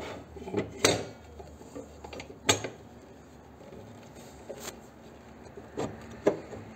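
A few sharp metal clunks and scrapes as a drill press vise and a 5 mm steel plate are set down and shifted into place on the drill press table. The loudest knock comes about two and a half seconds in, with a couple more near the end.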